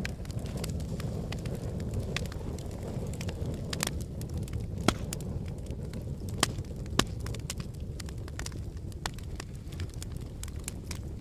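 Wood fire burning in a fireplace: a low steady rumble of flames under frequent irregular crackles and sharp pops of burning wood, a few louder pops around the middle.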